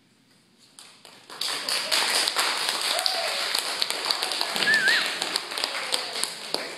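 Small audience applauding, the clapping starting about a second in and tapering off near the end, with a short cheer in the middle.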